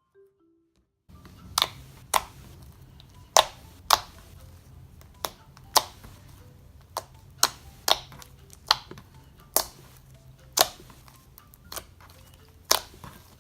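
Glossy slime, just activated, being squeezed and pressed by hand, giving sharp clicks and pops about once or twice a second, starting about a second in.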